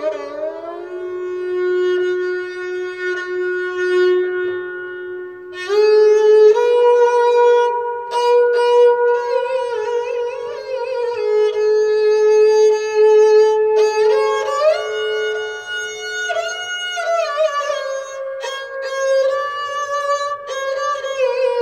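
Sarangi played solo with the bow in raag Mishra Bhairavi: one long steady note for about the first five seconds, then louder bowing from about six seconds in, the melody moving in steps and slides.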